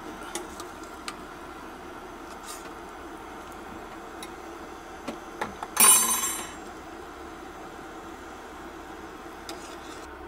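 Pots and utensils being handled in a kitchen: scattered light clinks and knocks over a steady background hum, and one loud, short rushing noise about six seconds in.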